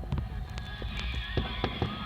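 Aerial fireworks going off: a rapid, uneven string of sharp bangs and crackles over low booms.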